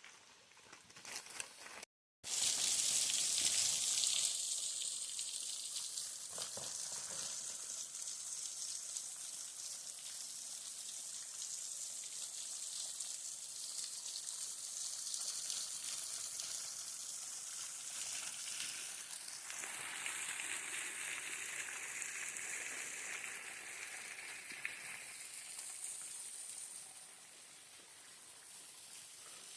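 Waterfall and creek water pouring and splashing in a steady rush. The sound shifts about twenty seconds in and grows quieter near the end.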